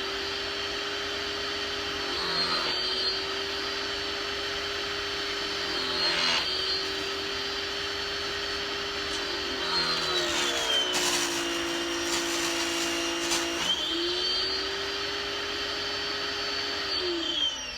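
Small 1700 PSI pressure washer running steadily with a hissing water jet, its motor whine sagging briefly a couple of times and dropping lower for a few seconds in the middle, then winding down at the very end. The owner judges this washer too weak to strip black walnut hulls.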